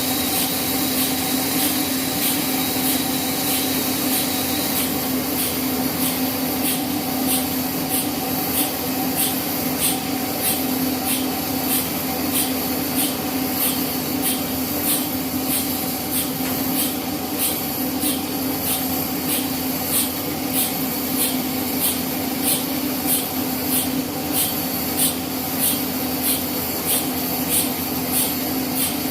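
Sawmill band saw running steadily: a constant machine hum with a regular high tick about twice a second.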